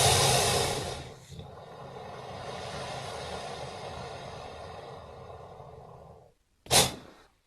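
Purussaurus creature sound effect, a giant crocodilian voice made from crocodile and alligator recordings. A loud breathy hiss drops away about a second in into a quieter, long breathy exhale, then one short sharp snort near the end.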